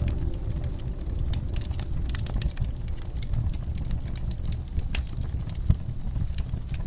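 Wood fire in a fireplace crackling and popping over a steady low rumble of the flames, with one louder pop about five and a half seconds in.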